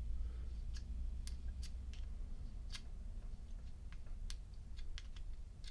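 Light, irregular metallic clicks and ticks of a thin metal tool against a Thorens petrol lighter's metal fuel insert as cotton wadding is pushed down into it, over a steady low hum.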